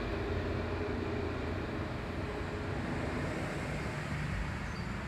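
Steady outdoor background noise: a low rumble with an even hiss over it, like distant traffic.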